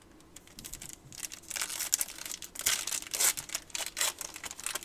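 Foil trading-card pack wrapper crinkling as it is handled and torn. The crackling is sparse at first and thick from about a second and a half in.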